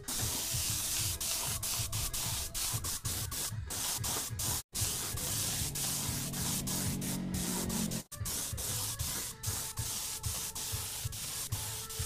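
Air spray gun hissing steadily as it lays the red-magenta top coat onto a motorcycle body panel, with two brief breaks.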